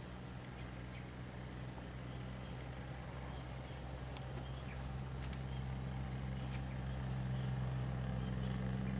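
A steady, unbroken chorus of insects, high-pitched, over a low hum that slowly grows louder.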